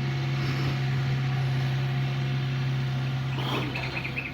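Small excavator's diesel engine running at a steady pitch, with a quick run of high chirps near the end.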